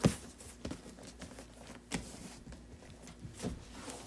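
Hands brushing and patting over a new vinyl cover on a VW Beetle front seat bottom, then lifting the seat on its metal frame, with a few short knocks and rustles.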